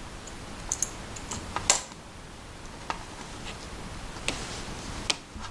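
Scattered light clicks and taps from the small metal parts and tools of a folding knife being taken apart by hand. There are about six separate clicks, the sharpest near the middle.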